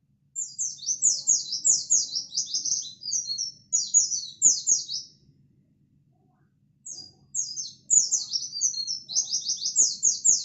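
A pleci (white-eye) singing a fast, high twittering song of quickly falling notes, in two long bursts separated by a pause of about a second and a half. It is the non-stop 'gacor' song that keepers use as bait to provoke other pleci.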